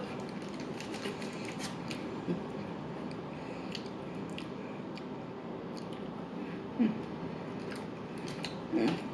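Close-miked chewing of fast food: scattered small wet mouth clicks over a steady low hiss, with two short low sounds near the end.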